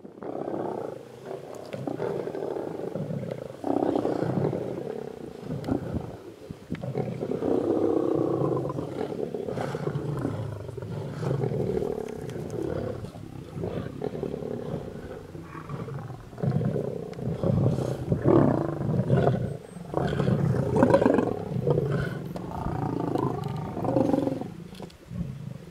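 A pride of lions growling in irregular, overlapping bouts while feeding together on a buffalo carcass.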